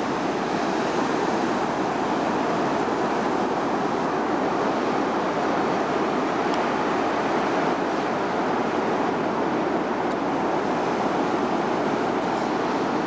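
Steady rush of sea surf mixed with wind noise on the microphone, even and unbroken throughout.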